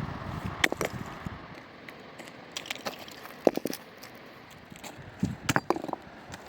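Irregular sharp clicks and knocks, a few a second at times, over a steady background hiss.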